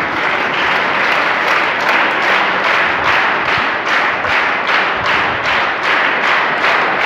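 Audience of schoolchildren applauding, the clapping falling into a steady rhythm of about three claps a second.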